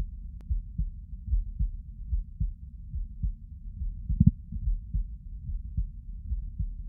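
A person's heartbeat, heard close up while they lie down: a steady rhythm of low, muffled lub-dub thuds. A louder thump stands out about four seconds in.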